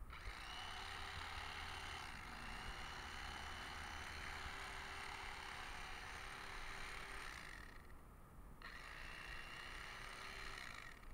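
Electric fillet knife running steadily as it is worked along a fish fillet at the tail end, separating the skin. The motor stops for under a second about two-thirds of the way through, then runs again.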